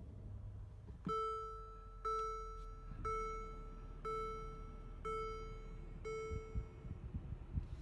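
Dashboard warning chime of a 2017 Mercedes-Benz GLS 550, ringing six times at about one a second with the ignition on and the engine not yet running.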